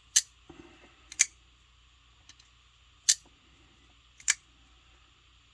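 Fox Edge folding knife's blade snapping open and dropping shut as the knife is shaken, four sharp clicks at uneven gaps of one to two seconds. The blade falls nearly closed on its own: an almost drop-shut action.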